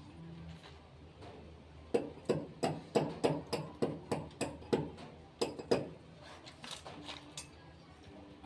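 A quick run of about a dozen sharp hammer taps, roughly three a second, lasting about four seconds, followed by a few lighter knocks.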